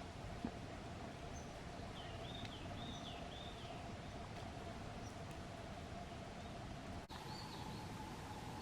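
A small songbird calling: a quick run of short, arching high chirps about two seconds in, and a few more about seven seconds in, over a steady outdoor background hiss with a faint steady hum.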